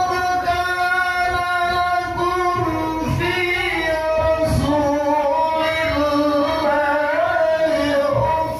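A man chanting a devotional melody solo into a microphone, holding long notes that waver and slide in pitch.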